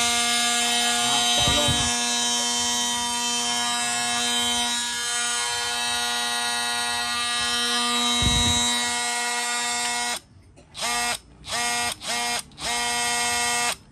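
DeWalt DCS354 Atomic 20V brushless oscillating multi-tool running free with a steady, even-pitched buzz. About ten seconds in it stops, then is triggered in four short bursts.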